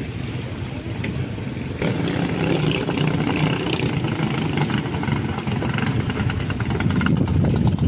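Engine of a small racing outrigger banca running at high speed on a test run across the water, growing louder about two seconds in.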